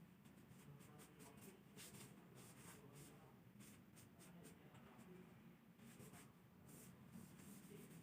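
Near silence, with faint scattered clicks and rustles of something being handled over a low room hum.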